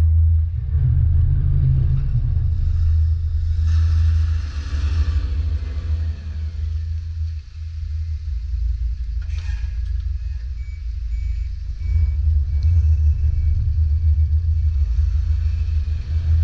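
DAF LF55.220 truck's diesel engine running with a deep, steady rumble as the truck pulls away, fading somewhat as it moves off. A brief hiss comes about nine seconds in.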